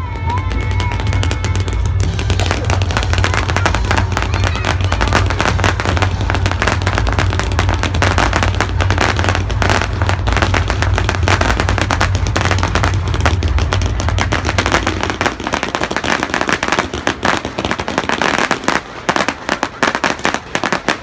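Fireworks display: a dense barrage of bursts and crackling over a deep rumble, thinning to scattered crackles about three-quarters of the way through. Music plays along with it.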